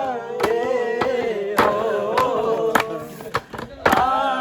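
A voice singing a Malayalam folk song, the melody held in long, wavering notes, with sharp beats keeping time about every half second.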